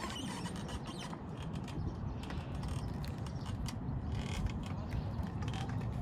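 Spinning fishing reel being worked, a run of irregular mechanical clicks, over a steady low rumble.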